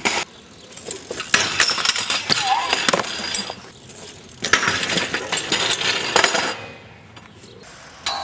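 BMX bike clattering and scraping on concrete and steel rails: two long bursts of dense metallic clicks and knocks, with quieter stretches between them.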